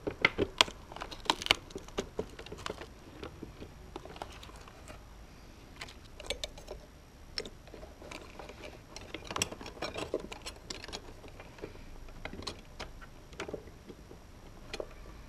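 Scattered clicks, taps and light rattles of hands fitting a speedometer gauge into a dash instrument binnacle. The sharpest clicks come in the first second or so and again around ten seconds in.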